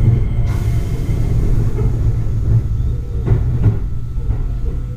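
Inside a Keio 8000 series electric train car as it pulls into a station: a steady low running rumble, with an airy hiss coming in about half a second in and two short knocks a little after the middle.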